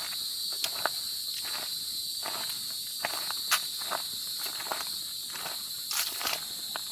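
Footsteps at a walking pace on a forest trail, over a constant high-pitched insect chorus.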